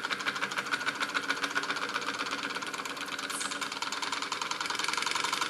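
SEL Junior 1530 toy steam engine running fast, with a rapid, even beat from its cylinder and flywheel that grows slightly louder near the end.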